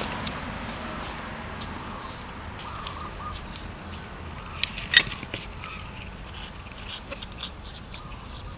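Quiet outdoor background: a passing vehicle's rumble fades away over the first two seconds, then scattered light clicks and ticks, with one sharper click about five seconds in.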